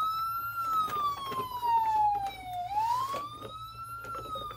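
Barbie toy ambulance's electronic siren wailing: one tone that climbs quickly, slides slowly down, then climbs and slides down again, about one cycle every three and a half seconds.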